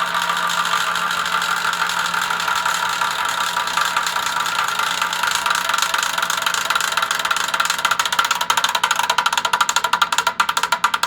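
New Spirit ceiling fan running with a loud, rapid rattling knock from its motor that turns into sharp, evenly spaced clicks near the end. The owner thinks a plastic part inside the motor, like a cable tie, is striking the rotating part.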